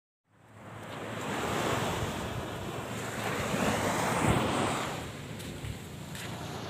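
Wind buffeting a phone's microphone outdoors, a steady rushing noise that starts a moment in, swells to its loudest about four seconds in, then eases.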